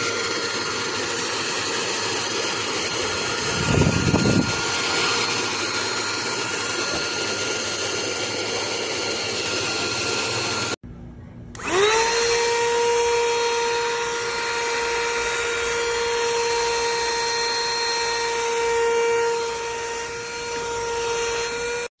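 Small handheld cordless vacuum cleaner running steadily with a high motor whine, with a brief low rushing burst about four seconds in. It cuts off about halfway, then a vacuum motor spins up again with a rising whine and runs steady until it stops abruptly.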